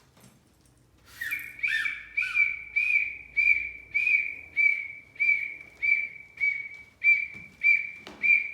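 Bird-call sound effect made with a household object: a run of short, high chirps at the same pitch, repeated about twice a second, starting about a second in.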